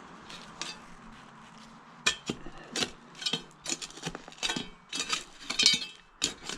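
Broken glass clinking and knocking in a bottle dump's soil as it is dug through and handled. A quiet start, then from about two seconds in a quick, irregular run of sharp clinks.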